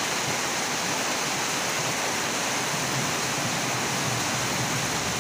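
Heavy downpour falling on a flooded street: a steady, dense hiss of rain hitting standing water.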